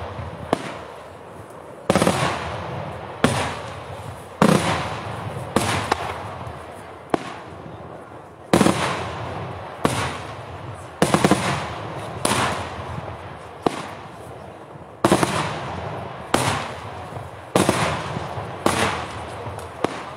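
Daytime fireworks: a steady run of loud aerial shell bursts, one bang about every second, each trailing off in a rolling echo, with two brief pauses along the way.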